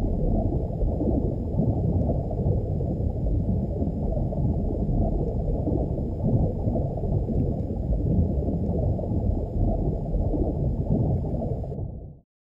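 Muffled rush and rumble of stream current heard underwater through a GoPro's waterproof housing: a steady low noise with nothing high-pitched in it. It cuts off shortly before the end.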